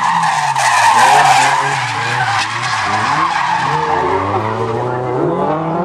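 A drift car sliding sideways through a corner. The tyres squeal and hiss as they slide, loudest in the first couple of seconds, while the engine revs rise and fall repeatedly as the throttle is worked through the drift.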